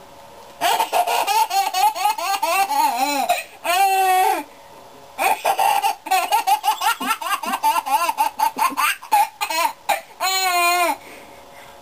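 A baby laughing in bouts of rapid, high-pitched belly laughs: a long run starting about a second in, a short burst near four seconds, then a longer stretch of quick laughs that stops about a second before the end.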